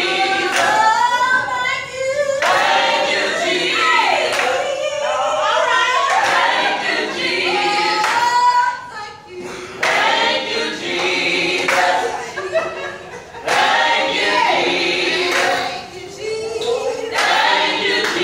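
Small gospel vocal group singing a cappella in harmony, with hand claps.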